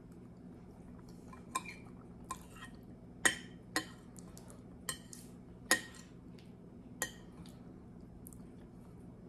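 Metal spoon clinking and scraping against a glass bowl while eating: about seven sharp clinks at uneven intervals, over a faint steady low hum.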